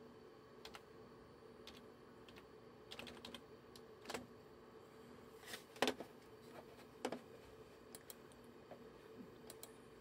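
Computer keyboard keys pressed in irregular single clicks and short runs, as a login password is typed; the loudest keystroke comes near six seconds in, with a few scattered clicks after it. A faint steady hum runs underneath.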